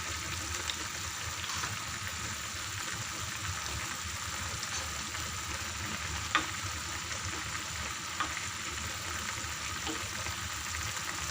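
Chicken adobo braising liquid bubbling in the pan as it comes to the boil, a steady sizzling hiss. A few light clicks break it, the sharpest about six seconds in.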